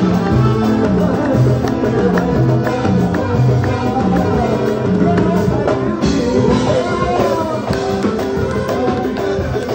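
Live Moroccan chaâbi music: a male singer through a microphone and PA, backed by an electronic keyboard and percussion, with a steady driving beat and a repeating bass line.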